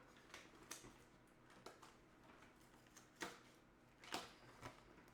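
Near silence with a few faint, scattered clicks and rustles of takeout food packaging being handled.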